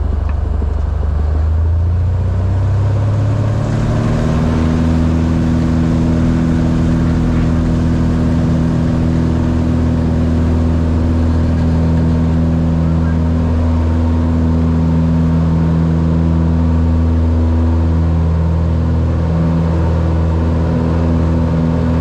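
Single-engine light aircraft's piston engine and propeller, heard from inside the cockpit, rising in pitch to takeoff power about two to four seconds in, then running steadily at full power through the takeoff roll.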